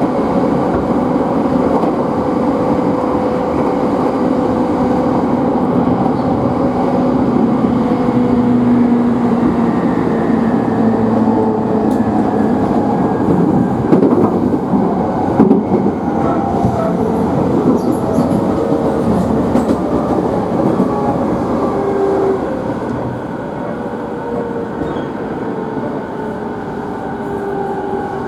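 Running noise heard from inside a JR East E217-series motor car, with the whine of its traction motors and inverter falling slowly in pitch as the train slows for the station, over rumbling and clicking wheels on the rails. The noise eases off about three-quarters of the way through.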